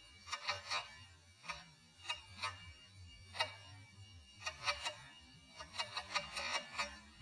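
Faint, irregular sharp clicks, a few each second at uneven spacing.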